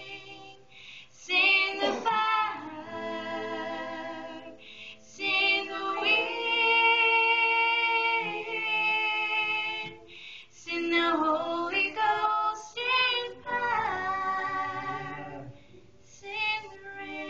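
A female voice singing a slow song in phrases of a few seconds, over steady sustained instrumental backing notes, with short pauses between the phrases.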